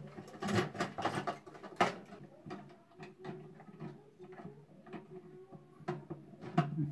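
Irregular plastic clicks and knocks as the fill valve and flush valve inside a Kale concealed toilet cistern are handled and fitted back into place by hand.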